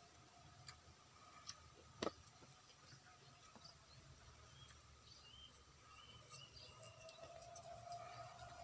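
Near silence: quiet rice-paddy ambience with faint bird chirps and a few small clicks, one sharper click about two seconds in.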